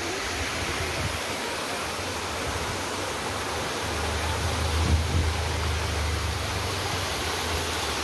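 Waterfall cascading over rock steps, a steady rush of water, with a low rumble coming in about halfway through.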